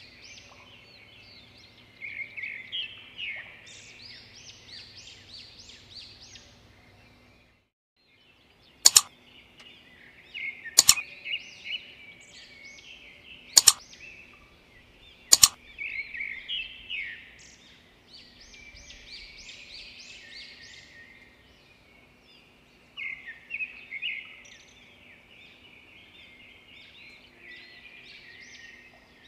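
Birds chirping, many short overlapping calls. In the middle come four sharp clicks about two seconds apart, the click sounds of an animated like, share, subscribe and bell overlay.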